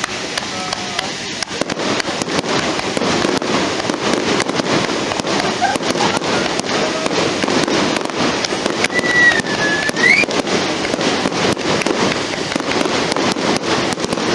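Fireworks display: a dense, continuous barrage of firework bursts crackling and popping, with a brief whistle about nine seconds in.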